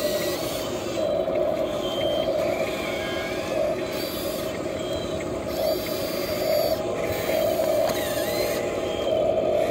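Electric motors of a toy RC excavator whining as its boom and arm are worked, the hum stopping and starting several times.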